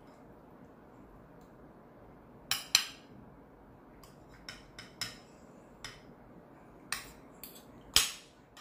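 Metal fork and spoon clinking and scraping against a plate and serving bowl while food is served and cut. After a quiet start come about eight scattered sharp clinks, loudest about a third of the way in and again near the end.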